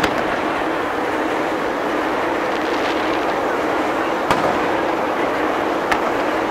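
Aerial fireworks shells bursting: sharp bangs right at the start, about four seconds in and near six seconds, over a steady hubbub of noise.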